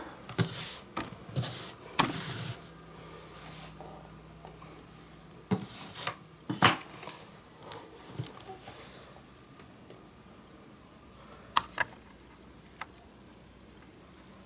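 Scattered handling noises: short clicks, taps and rustles as the endoscope cable is moved about and the iPad is touched. They are most frequent in the first seven seconds, with a couple more near the end.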